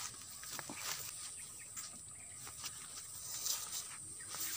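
Insects chirring in a steady, high, even buzz, with scattered faint clicks and rustles.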